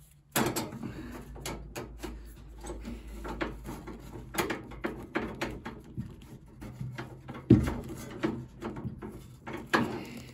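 Hands working on a spin dryer's parts: irregular rubbing, clicks and knocks, with one sharp knock about seven and a half seconds in.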